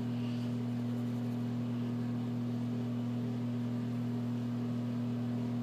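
A steady low hum of two unchanging tones, one low and one about twice as high.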